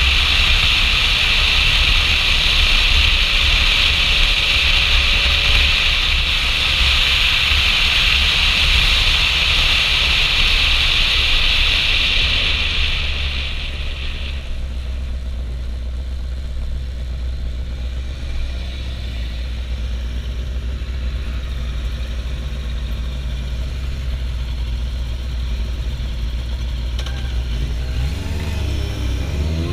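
Kawasaki Zephyr 750's air-cooled inline-four engine under way at road speed, mixed with heavy wind rush. About halfway through the wind rush dies away as the bike slows, leaving a steady low engine rumble. Near the end the engine revs up with rising pitch as the bike accelerates.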